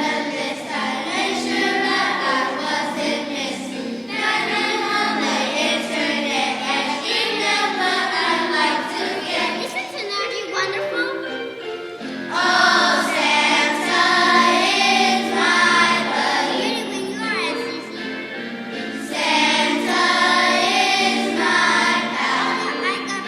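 Elementary school children's choir singing, growing louder after a short pause about halfway through.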